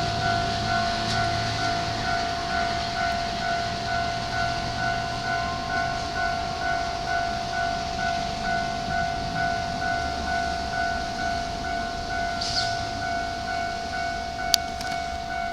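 Japanese railway level crossing's warning bell ringing in steady, even repeats over a low rumble, with one sharp click near the end.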